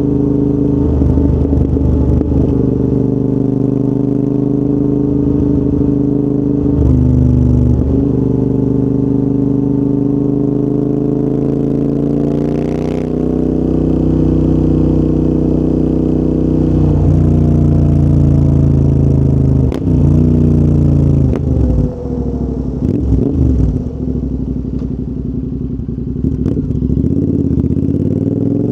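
Royal Enfield Interceptor 650's 648 cc parallel-twin engine through a full TEC exhaust system, riding along. Its pitch rises and falls through gear changes, holds steady for a stretch, then drops and picks up sharply several times about two-thirds through. It falls away near the end before rising again.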